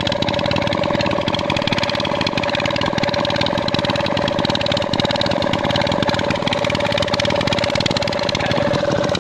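Kirloskar diesel engine running steadily with a rapid, even knocking beat as it drives an irrigation water pump. Water gushes from the pump's outlet pipe and splashes onto the ground.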